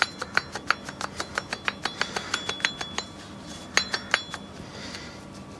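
Worn Jeep front wheel hub bearing unit rocked by hand, its loose play giving a quick run of sharp metal clicks, about six or seven a second for three seconds, then two louder ringing clinks; the clicking is the sign of a worn-out bearing.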